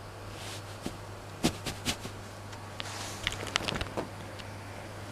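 Kittens scuffling on a satin-draped couch: sharp ticks, soft thumps and rustles of the slippery cloth as they paw and scramble. The loudest thump comes about a second and a half in, and a quick flurry of ticks follows around three to four seconds in.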